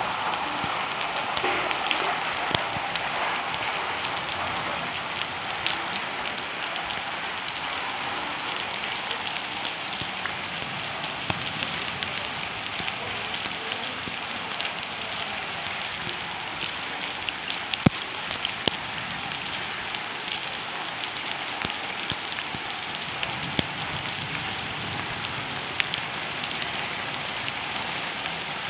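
Steady rain falling, with scattered sharper taps of individual drops, a few louder ones about two-thirds of the way through.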